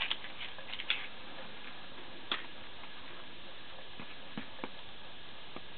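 A few sharp clicks and light taps of small objects being handled on a workbench, the strongest about a second in and another past two seconds, over a steady hiss.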